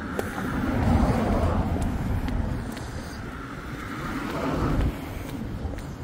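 Stiletto heels clicking on brick paving at a walking pace, a few sharp clicks, mostly covered by a louder rushing rumble of road traffic. The traffic swells twice and drops off sharply about five seconds in.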